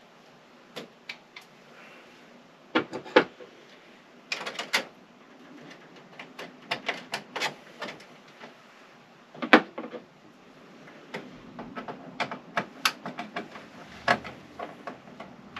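Irregular clicks, taps and knocks of a wire and hand tools against the metal of a main breaker panel as a neutral conductor is worked onto the neutral bar, with sharper knocks about three seconds in and near the middle.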